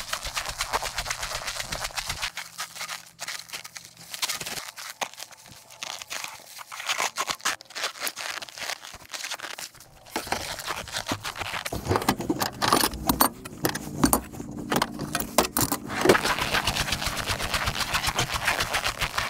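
Irregular rustling, clicking and scraping as a person walks through snow and rummages for gear in the back of a van.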